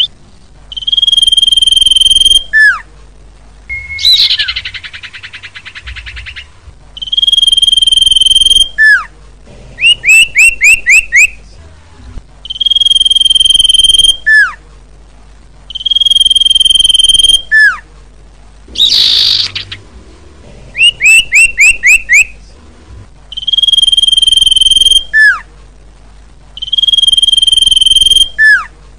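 Common iora (cipoh) singing in a loud repeating pattern. Long, steady, high whistled notes each end in a quick falling note. They alternate with two fast runs of about five falling chirps and two harsh, buzzy rattles.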